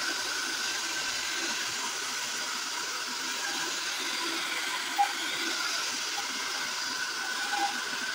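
Handheld hair dryer with a concentrator nozzle blowing steadily, a constant rush of air with a steady high hum. A brief click sounds about five seconds in.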